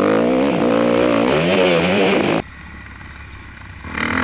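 Motocross bike engine heard from on board, revving up and down under the throttle. About two and a half seconds in the engine note drops off abruptly, and it picks up again, rising, near the end.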